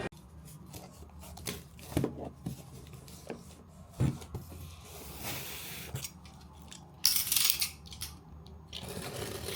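A parcel being opened by hand: scattered taps and clicks of packaging being handled, then about seven seconds in, a loud rush of tearing or rustling packaging lasting under a second.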